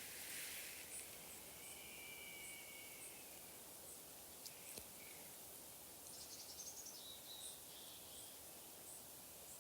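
Faint natural ambience: a steady hiss under regular high insect chirps, with birds calling, one drawn-out call about two seconds in and a quick trill around six to seven seconds in.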